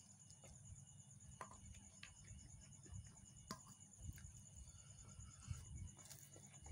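Near silence: a few soft clicks of chewing and of fingers mixing rice on a steel plate, over a faint, steady, evenly pulsing high trill.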